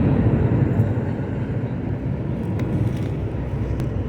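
Car travelling on a highway: a steady low rumble of engine and tyre noise.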